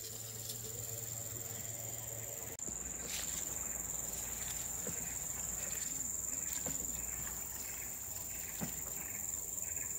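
Insects in riverside vegetation keep up a steady, high-pitched drone over a faint low background rumble.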